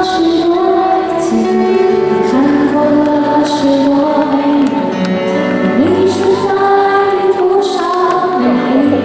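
Live pop performance: a woman singing a melody into a microphone over instrumental accompaniment.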